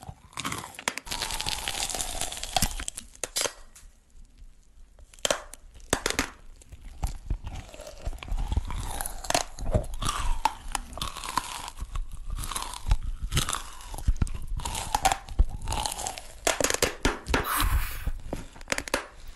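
Close-miked ASMR eating: bites into and chewing of a cake shaped like a hairbrush, a run of irregular crunches and crackles mixed with wet, sticky mouth sounds from its cream filling.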